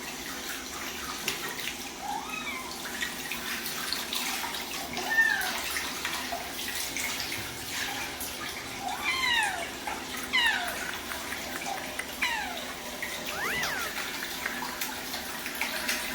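Long-haired cats meowing again and again, short rising-and-falling meows that come thicker in the second half, over the steady rush of running tap water during a cat bath.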